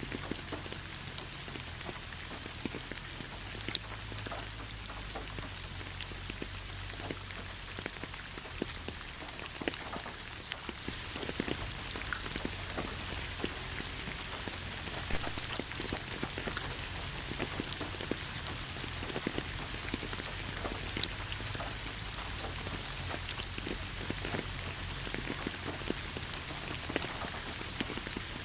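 Steady rain falling, with many separate drops tapping sharply on a surface, a little heavier after about ten seconds.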